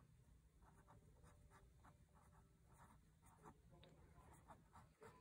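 Faint scratching of a pen writing on lined notebook paper, in many short strokes.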